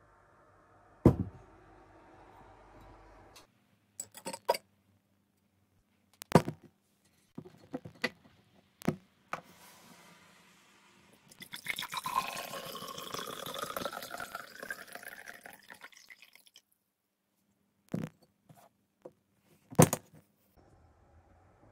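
Liquid poured from a glass decanter into a tall glass for about five seconds midway, its tone rising steadily as the glass fills. Before and after come sharp knocks and clinks of glass being handled and set down, the loudest near the start and near the end.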